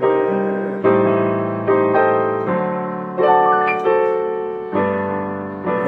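Piano playing an instrumental interlude of slow, sustained chords, a new chord struck about every second and left to ring and fade.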